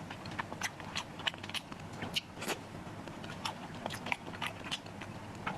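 Close-miked eating: a person biting and chewing food, with many small, irregular crunchy clicks.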